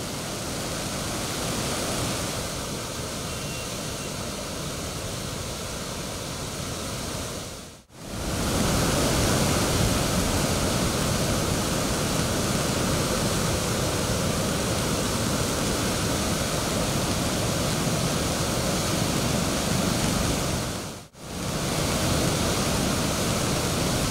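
Floodwater rushing out through the open gates of Darna dam: a steady, heavy rush of churning water. It drops out briefly twice, about 8 and 21 seconds in, and is louder after the first break.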